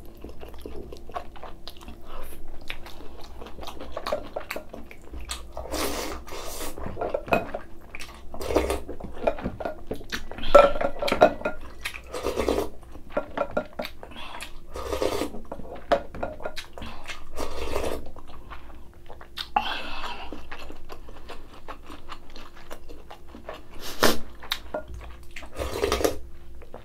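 Close-miked eating: crunchy chewing of spicy kimchi and of spoonfuls of rice soaked in ice water, in irregular bites of varying loudness.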